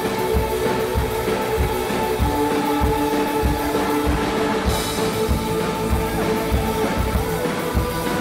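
Live synth-pop band playing an instrumental stretch: held chords over a steady drum beat and electric bass, with no singing.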